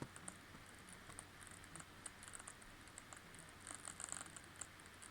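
Faint, irregular sizzling crackle from an Acer ConceptD 7 laptop running under load, a fault noise that comes with the machine overheating.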